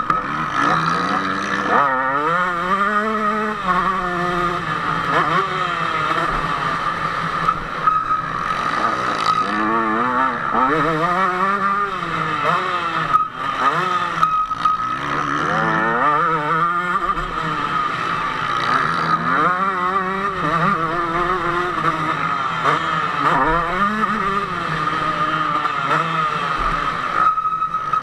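KTM 150 SX single-cylinder two-stroke motocross engine, heard from on the bike, revving hard and easing off over and over as it is ridden around a dirt track. Its pitch climbs and drops every few seconds.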